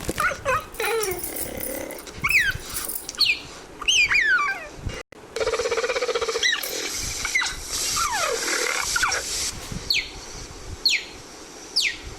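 Leopard sound effect: growling, rasping animal calls mixed with many quick high chirps and falling whistles. The sound cuts out sharply for an instant about five seconds in, then a rapid rasping rattle follows.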